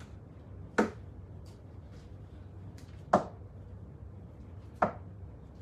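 Three sharp knocks, the first about a second in and the others roughly two seconds apart, over a faint steady low hum.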